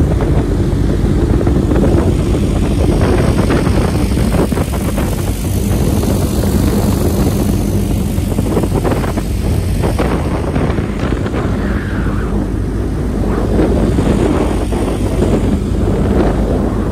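Boat motor running steadily while the boat is under way, with rushing water and wind noise around it.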